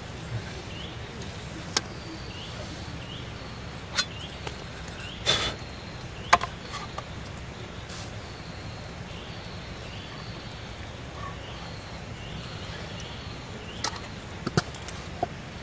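Scattered knocks and clicks of a wooden stick and metal camp cookware being handled, ending in a quick run of clinks as a utensil works in a metal pot. Underneath, a steady hiss and a faint chirp repeating about every two-thirds of a second.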